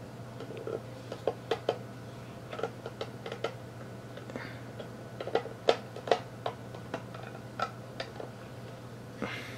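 Small, irregular clicks and taps of fingers handling a 1/6 scale collectible figure's hard plastic armor pieces, the loudest a little past halfway, over a steady low hum.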